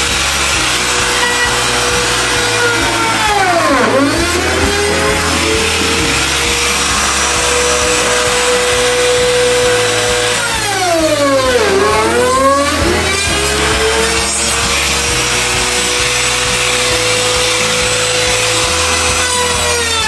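Compact trim router running steadily while routing a recess for a drawer lock in a wooden drawer front. Its pitch sags sharply and then recovers twice, about four seconds in and again around eleven to twelve seconds in, as the bit bogs down in the cut.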